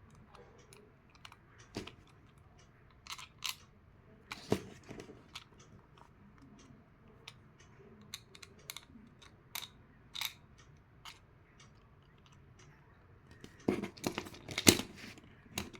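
Scattered light clicks and taps from handling an acrylic case and its small bolts, with a quick run of louder clicks near the end.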